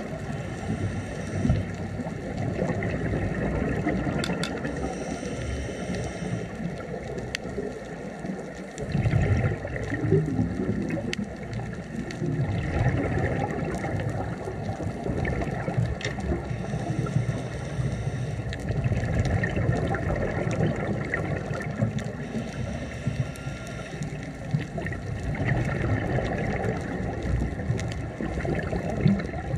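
Underwater sound of a scuba diver breathing through a regulator: exhaled bubbles gurgling in swells every few seconds, with scattered sharp clicks.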